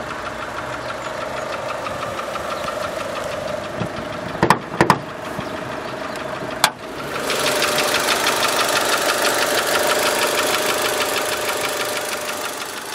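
The Mitsubishi Lancer IX's 2.0-litre 16-valve inline-four idles steadily with a fine ticking. A few sharp clicks of the bonnet catch come about halfway through, then the idle gets markedly louder and brighter as the bonnet is raised.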